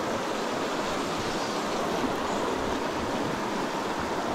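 Steady rush of a clear, rocky mountain creek flowing over a shallow riffle.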